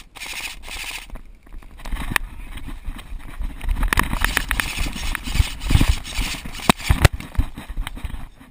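Running footfalls on dry ground with gear jostling, and wind rumbling on the microphone. It grows much louder about two seconds in, with irregular thuds and knocks.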